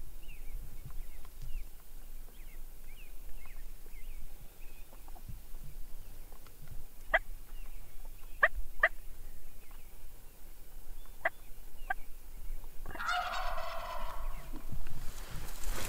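A wild Merriam's turkey gobbling once near the end, a rapid rattling gobble about a second and a half long. Before it come several short, sharp single notes, with small birds chirping faintly.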